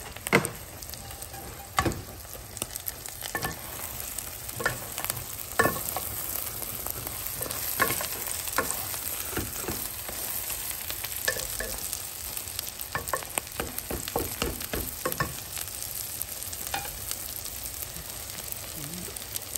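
Egg, spinach and dried shrimp omelette sizzling in a frying pan while a wooden spatula stirs and turns it, with scattered knocks and scrapes of the spatula against the pan.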